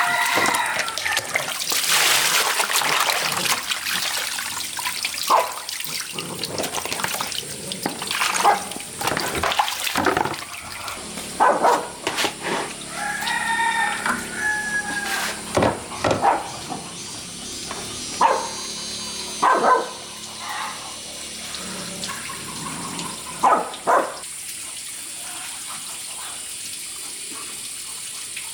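Water pouring and splashing, with short animal calls here and there; it settles to a steady, quieter hiss near the end.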